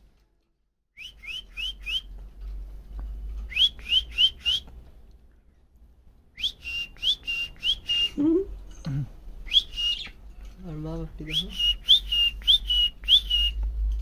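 Young green budgie chirping: repeated runs of four to six quick notes, each rising sharply and then held briefly at the same pitch, with short pauses between runs.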